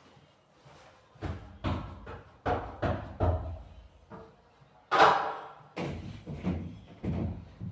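Household objects being knocked and set down while a refrigerator is cleaned out: a run of separate knocks and thumps, the loudest about five seconds in.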